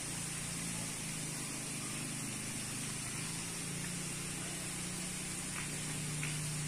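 Steady outdoor ambience: an even hiss with a low steady hum beneath it, and a few short, faint high chirps near the end.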